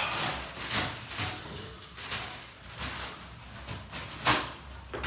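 A person getting up off a chiropractic treatment table and moving about: repeated short rustling and shuffling sounds every half second or so, with one sharper knock about four seconds in.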